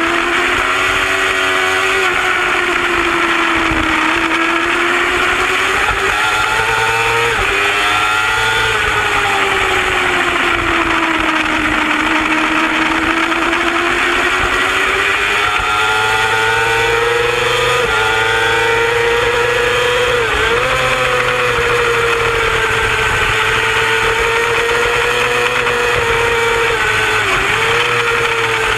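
Race superbike engine heard from an onboard camera at racing speed, its pitch rising and falling slowly through the corners with a few sudden short dips at gear changes, over a steady rush of wind.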